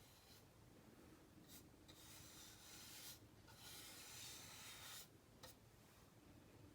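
Faint scratchy brushing and rubbing as paint is worked onto a plastic airsoft magazine, in stretches of a second or two with short pauses between.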